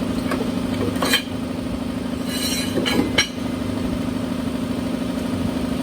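A steady low mechanical hum, like an engine idling, with a few sharp knocks of wood and metal as a block of wood is set against the mower blade.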